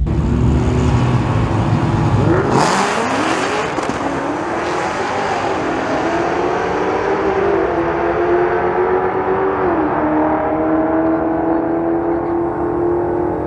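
Ford F-150 Coyote 5.0 V8 engines at a drag-strip start line. The engine runs low, then about two and a half seconds in it revs hard with a burst of harsh hiss from spinning tyres in a burnout. It then holds steady, slightly wavering revs.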